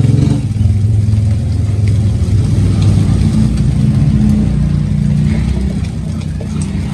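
A steady low motor drone, its pitch shifting up and down a little, with faint light clicks of a spatula stirring a thick sauce in a frying pan.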